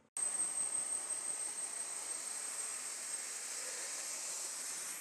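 Helicopter turbine engine running: a steady high whine over a rushing hiss, starting abruptly just after the beginning.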